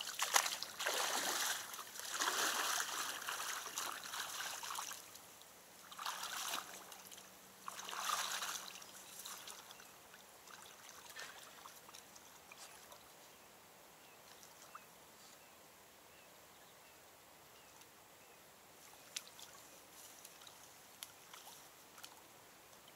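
Splashing and sloshing of a person wading in chest waders through shallow water among reeds, loudest in the first few seconds with two more bursts around six and eight seconds in, then fading to faint water sounds as he moves farther out.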